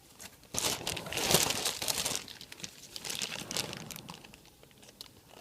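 Plastic packaging crinkling and rustling as the new replacement laptop keyboard is handled, an irregular crackle that dies away toward the end.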